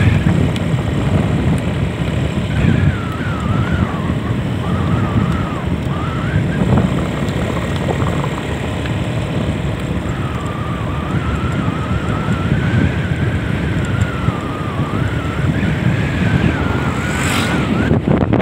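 Motorcycle riding along: wind buffeting the microphone as a steady rumble over the engine, with a thin whine that wavers up and down in pitch as the speed changes.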